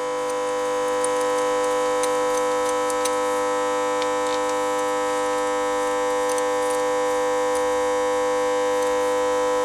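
A steady, unchanging hum of several held tones, with a few faint clicks.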